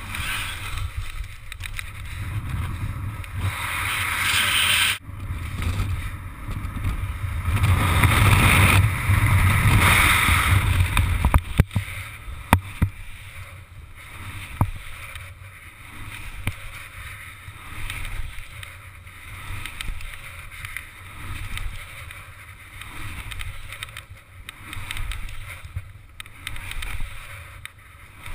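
Rushing wind buffeting a body-mounted camera's microphone as a paraglider tumbles through acrobatic manoeuvres, swelling and fading with airspeed, loudest in a surge in the middle, with a few sharp clicks soon after.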